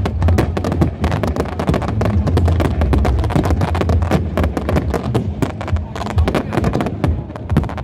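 Fireworks display: a dense, rapid volley of bangs and crackles, many per second, over a continuous low rumble.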